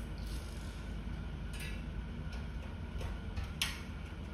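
Scattered light clicks and taps of small metal parts being handled inside an opened gas stove, with one sharper click near the end, over a steady low hum.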